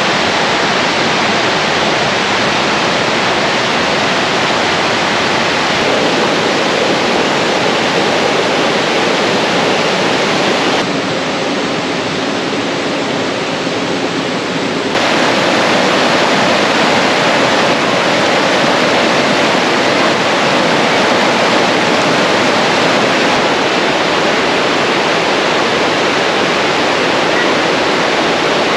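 Shallow rocky river rushing over boulders and small rapids: a steady, loud rush of water. It is a little quieter for about four seconds in the middle.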